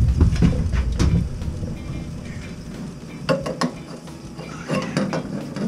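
Copper pipe and fittings clinking and knocking as a copper drip tube is fitted to a boiler's relief valve. There are a few sharp clicks, bunched about three seconds in and again near the end, after a low rumble of handling in the first second.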